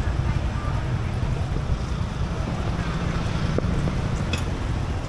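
Steady low rumble of street traffic and wind on the microphone at a roadside market, with a few faint clinks of a spoon in a metal mixing bowl around the middle.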